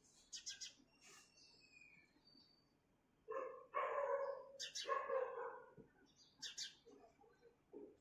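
House sparrows chirping in short, high bursts. In the middle come two louder, lower calls, each about a second long.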